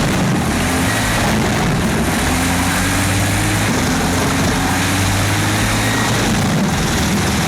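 Large wood chipper running steadily as it takes in whole logs, its engine drone carrying a faint tone that rises slowly over a few seconds.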